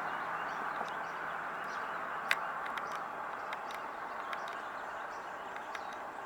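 Steady outdoor background hiss with faint bird chirps and a few sharp clicks, one louder click about two seconds in.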